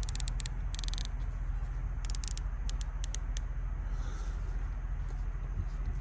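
US Optics TS-6X rifle scope's adjustment turret being turned by hand: runs of crisp detent clicks in the first three and a half seconds, over a low steady hum.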